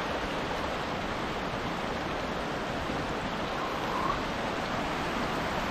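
Small mountain stream rushing steadily over rocks, a continuous even hiss of flowing water.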